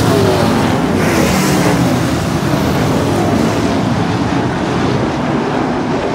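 Pro stock dirt-track race cars at speed. One car passes close with its engine note falling in the first second, then the engines of the field blend into a steady, loud noise.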